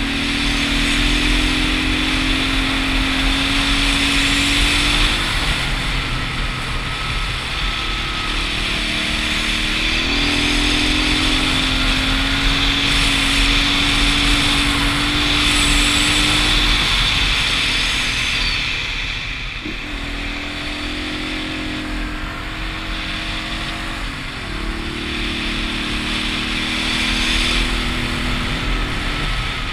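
Single-cylinder dual-sport motorcycle engine running on the road, its note easing slowly down and stepping back up about three times, with wind and road noise over the microphone.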